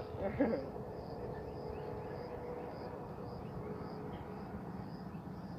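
Outdoor ambience: a steady faint hum that fades out near the end, with an insect chirping in a high, regular pulse about twice a second.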